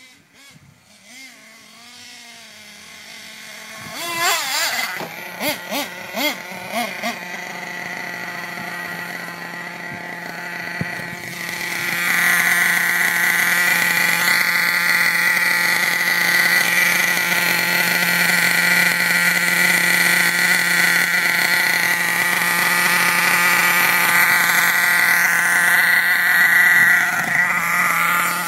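Small nitro engine of an HPI Savage X 4.6 RC monster truck with an LRP exhaust. It grows louder over the first few seconds, gives a quick run of throttle blips from about four to seven seconds in, then runs loud and steady with a high-pitched buzz from about twelve seconds on.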